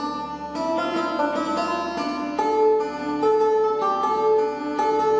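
Background music with a plucked, harpsichord-like melody of quick notes.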